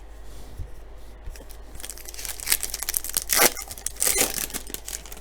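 A trading-card pack's wrapper being torn open and crinkled by hand, a run of crisp tearing and rustling starting about two seconds in and peaking just past the middle.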